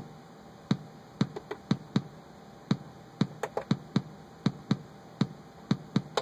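Electronic kick drum played by a MIDI step sequencer, looping a steady beat of about two hits a second. A few extra hits fall in between as new steps are programmed into the pattern.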